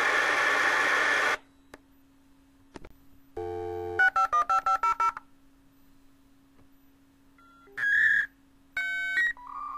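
Dial-up modem connection sound. A loud hiss of data noise cuts off about a second and a half in. After a pause a telephone dial tone sounds briefly, then a quick run of about eight touch-tone dialing beeps, and near the end short beeping tones start.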